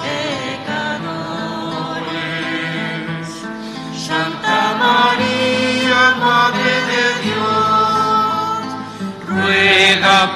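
Offertory hymn sung by voices in slow, held notes, with the sung words' consonants heard now and then.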